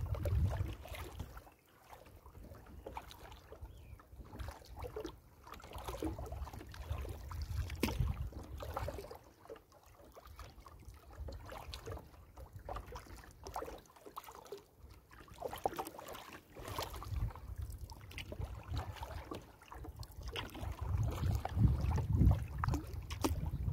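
Kayak being paddled: water splashing and dripping off the paddle at irregular strokes. Low wind rumble on the microphone comes and goes, strongest near the end.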